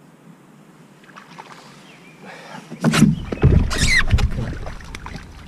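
Water splashing and knocking around a kayak as a hooked largemouth bass is brought in to the side, starting about three seconds in and easing off near the end, with a deep wind rumble on the microphone.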